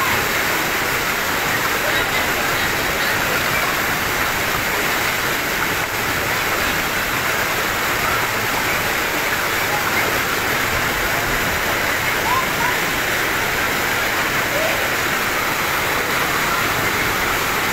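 Floodwater surging down a street, a steady turbulent rush of water.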